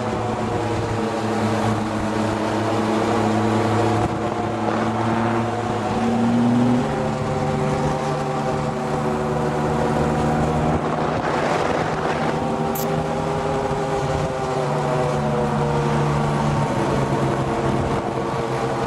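Buggy engine running steadily while driving. Its pitch steps up about a third of the way in and sinks again near the end, over a rush of road and wind noise.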